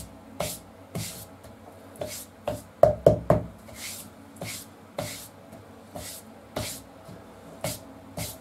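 Repeated short swishing strokes, roughly two a second, with a couple of sharper knocks about three seconds in: hands and a rag working over the motorcycle's rear tyre while it is inspected for nails and screws.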